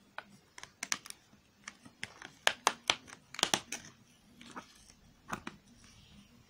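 A perforated cardboard advent-calendar door being picked at with fingernails and torn open: a run of sharp crackles and clicks, thickest in the middle.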